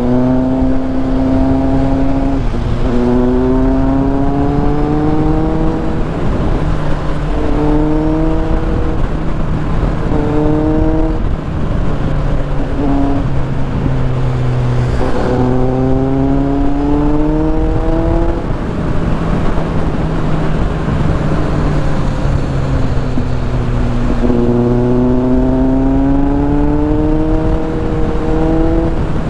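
Kawasaki Z800's inline-four engine accelerating through the gears, its pitch climbing for a second or two and dropping back at each upshift, again and again, with a few stretches of steady cruising between. A constant rush of wind and wet-road noise runs underneath.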